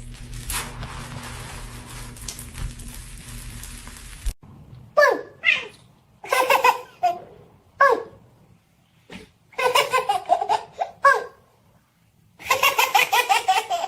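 A steady low hum that cuts off about four seconds in, then a person laughing in separate bursts, ending in a quick run of short laughs near the end.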